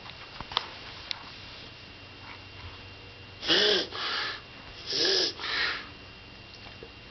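A pet coughing in two fits about a second and a half apart. Each fit is a loud hack that rises and falls in pitch, followed at once by a weaker, breathier one.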